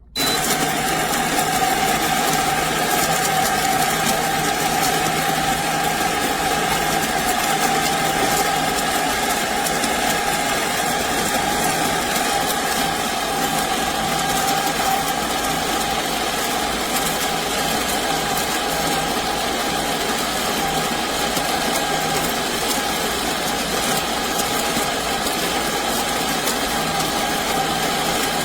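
Ollygrin electric conical burr coffee grinder switched on and grinding beans: a loud, steady motor whine with a clear tone, starting abruptly and running on without a break.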